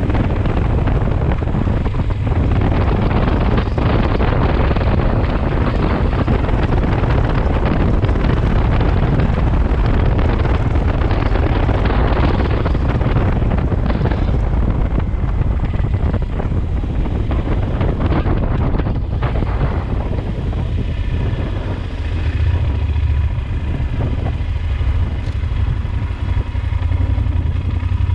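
Yamaha Super Ténéré 1200 parallel-twin engine running under way, heard through heavy wind rush on the microphone. From about twenty seconds in the wind noise eases and the engine's steady note comes through more clearly.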